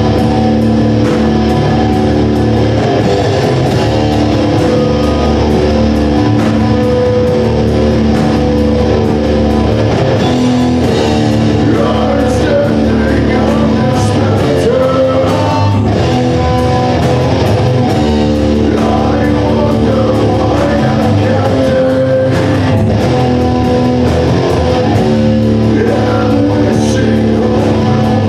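A rock band playing live, with electric guitars, bass and a drum kit, and a singer singing over them.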